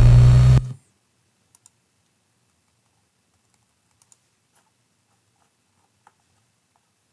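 Playback of a synthesized sound-design layer, many gliding electronic tones over a heavy low hum, stopping abruptly less than a second in. A few faint computer keyboard and mouse clicks follow.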